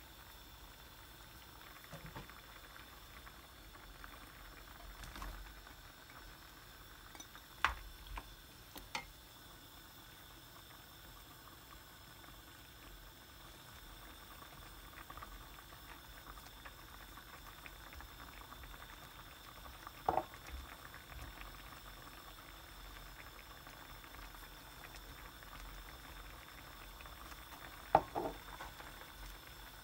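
Cream sauce simmering in a frying pan: a faint, steady bubbling crackle. A few short sharp knocks of utensils against the pan cut through it, the loudest near the end.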